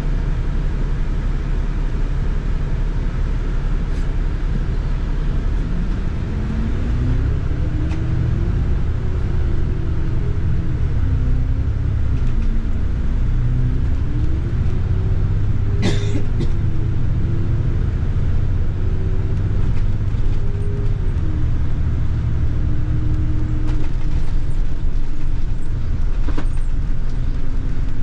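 Double-decker bus heard from the upper deck while under way: a steady low engine and road rumble, with a drivetrain whine that rises in pitch about six seconds in as the bus picks up speed and then wavers up and down. A sharp click sounds once about sixteen seconds in.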